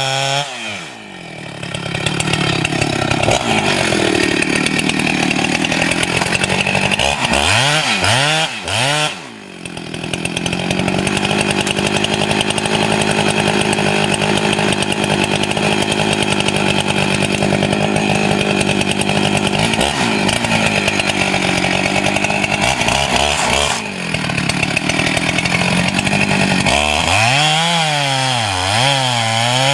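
Chainsaw engine running at high revs, cutting through wood under steady load. The throttle drops off briefly about a second in, near nine seconds and near twenty-four seconds, and the revs rise and fall repeatedly around eight seconds and again near the end.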